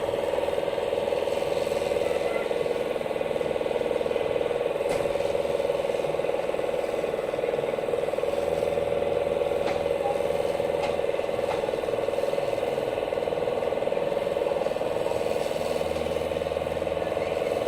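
Excavator running with a steady high whine and a low rumble, and a few scattered clanks.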